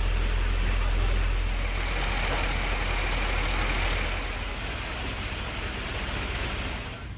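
A vehicle engine running steadily with a low rumble under general street noise; the rumble fades about four seconds in.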